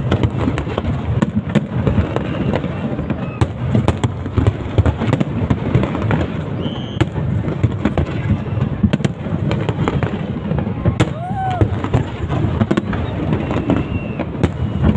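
Fireworks display: a dense, continuous barrage of bangs and crackles over a low rumble.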